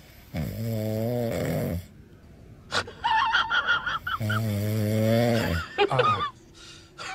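A sleeping tabby cat snoring: two long, drawn-out snores a few seconds apart, with a short high, wavering squeak between them.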